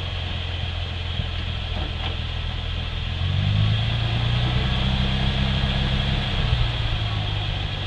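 1999 Ford Mustang engine running at idle. About three seconds in its speed rises a little and holds for about three seconds, then settles back to idle.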